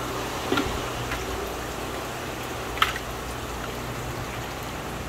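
Steady bubbling and trickling of aerated, circulating fish-tank water over a low hum, with two short clicks, the louder one a little past halfway.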